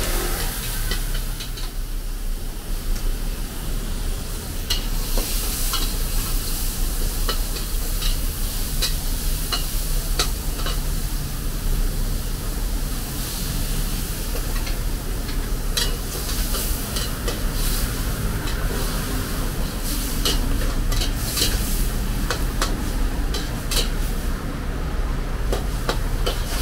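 Food sizzling in a hot pan, with a metal spatula clicking and scraping against the pan many times over a steady low hum.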